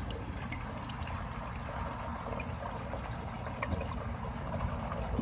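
American Standard Luxor toilet flushing at 1.28 gallons: a steady rush of water swirling round the bowl and draining down the trapway.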